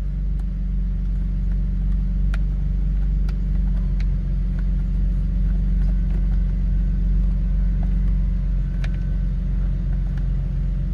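Steady low rumble, with a few light clicks and taps scattered through it.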